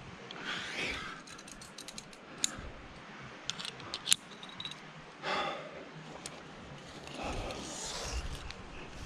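Metal clicks of an aluminium quickdraw carabiner being clipped onto a bolt hanger, several sharp clicks between about two and four seconds in, the loudest one just past the middle. Between them a climber breathes hard three times, long noisy breaths.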